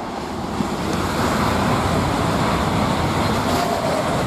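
High-speed train passing at speed: a rushing of air and wheels that swells over about a second, holds loud, and begins to fade near the end.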